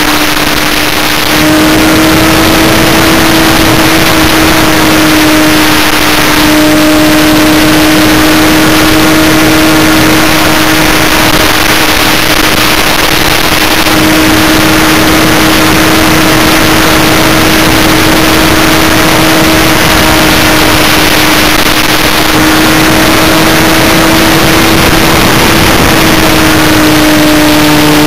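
Electric motor and propeller of an Electrifly SU-31 RC plane running steadily in flight, heard from a camera mounted just behind the prop: a constant pitched drone over heavy wind rush. The drone strengthens about a second in, and its pitch rises slightly and dips again near the end.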